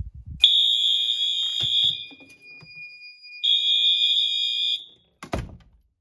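Fire alarm sounding as a detector is set off: a high-pitched electronic alarm tone in two loud blasts of about a second and a half each, with a fainter steady tone running between them. The alarm stops, and a short thump follows near the end.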